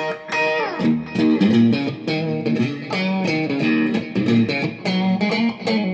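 Electric guitar played through a Line 6 POD HD500 on its PHD Motorway amp model with a 2x12 cab, set for a light crunch tone rather than full distortion, with noise gate, delay and reverb. It plays a run of picked notes, with a slide down in pitch about half a second in.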